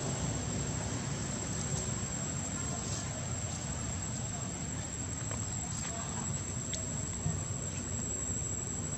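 Insects droning steadily at one high pitch, with a few faint scattered ticks over a low steady background hum.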